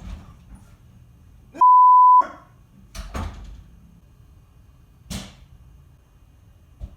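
A loud, steady one-pitch beep, like a censor bleep, cuts in about a second and a half in and lasts about half a second. Then come muffled sharp cracks from the far side of the house: a quick pair about three seconds in and a stronger one about five seconds in. These are suppressed Glock 19 pistol shots heard through the walls.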